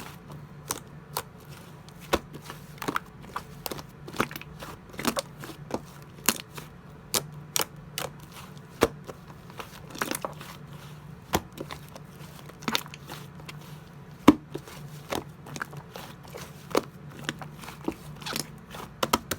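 Irregular sharp clicks and crackles, one or two a second and some louder than others, over a steady low hum.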